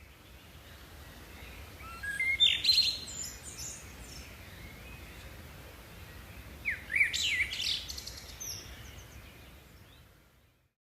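Songbirds chirping outdoors in two short bursts of quick rising and falling notes, about two seconds and seven seconds in, over a faint background of breeze. The sound fades out near the end.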